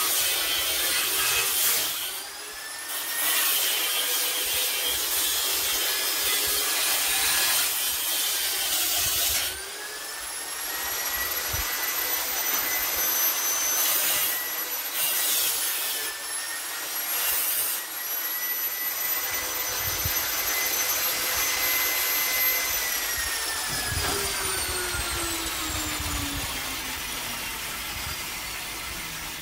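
Handheld angle grinder grinding the point of a steel knife blade: a high motor whine over the rasp of the disc on steel. Twice the rasp drops away and the whine climbs as the disc comes off the work. About twenty-two seconds in the grinder is switched off and its whine falls steadily as it winds down.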